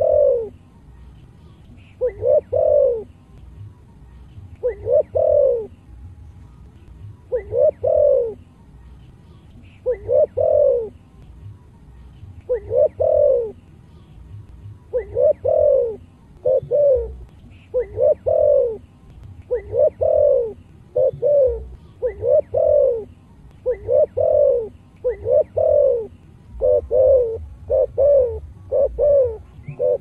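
Spotted dove (cu gáy) with a deep 'giọng thổ' voice cooing: short repeated coos, about one every two and a half seconds at first, then coming faster from about halfway, with several close pairs near the end.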